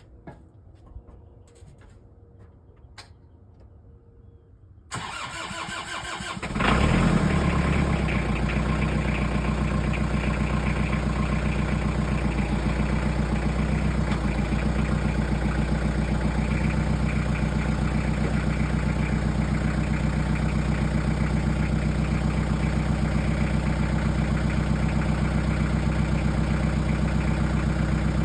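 Compact tractor's diesel engine being cranked about five seconds in, catching a second or so later, then running steadily at idle.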